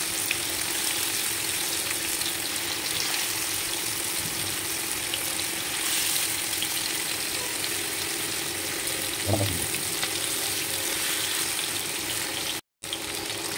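Murrel (snakehead) fish steaks shallow-frying in hot oil on a tawa: a steady sizzle with small crackles and pops. The sound cuts out for a moment near the end.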